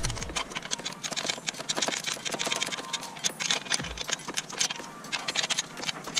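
Metal wrenches and sockets clinking and rattling against each other: a quick, irregular run of small metallic clicks.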